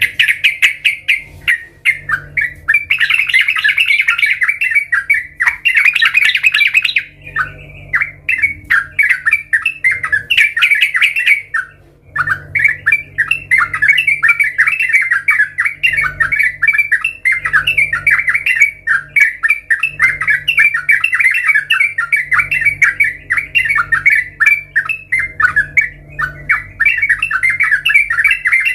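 Yellow-vented bulbul (trucukan) singing a long, rapid run of chattering notes, broken by brief pauses about 7 and 11 seconds in.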